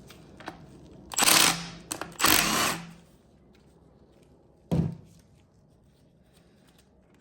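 A cordless power tool running in two short bursts, backing out the 10 mm lock bolt of a differential's cross-pin, then a single sharp clank about five seconds in.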